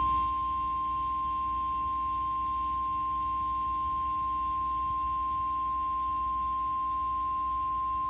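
Emergency Alert System attention signal announcing a tornado warning: a single steady high tone, unbroken and at a constant level.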